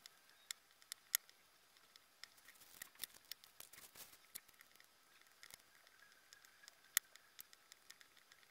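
Faint, scattered light clicks and taps of small resin diamond-painting drills, a plastic drill tray and a stylus being handled. The sharpest click comes about seven seconds in.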